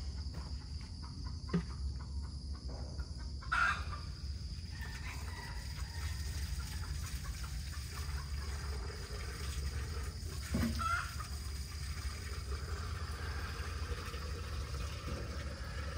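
Domestic chickens calling a few times with short clucks, once early and again about midway, over a steady low rumble.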